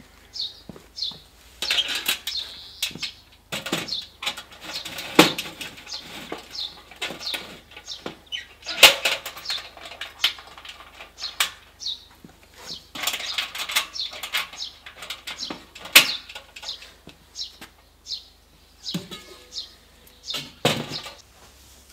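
Steel sections of a ProQ bullet smoker being fitted together: irregular clanks, knocks and scrapes of metal on metal as the stack section and lid go on, with a few sharper knocks.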